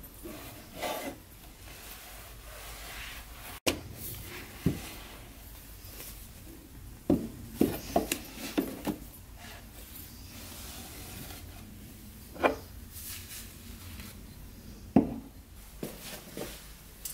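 Household handling sounds: scattered light knocks and clicks of objects being picked up and set down, with a quick cluster of them about seven to nine seconds in, and rubbing in between.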